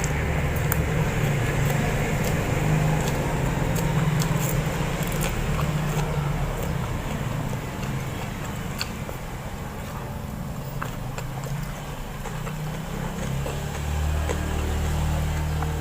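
Eating sounds: chewing with scattered small clicks, over a steady low hum.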